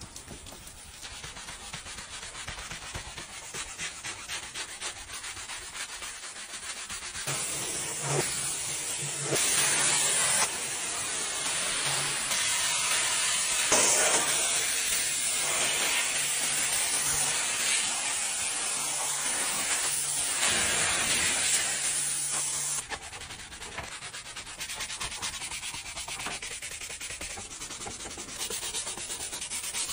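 Gloved hand scrubbing foam into a fabric car seat, then a pressure washer's jet hissing loudly onto seatbelt webbing for about fifteen seconds, then a brush scrubbing a plastic car interior trim panel.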